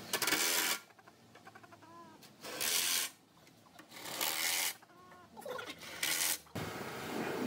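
Cordless drill run in four short bursts, turning the screw jacks on a cast-iron machine base. Between the bursts a rooster gives a couple of soft, short calls.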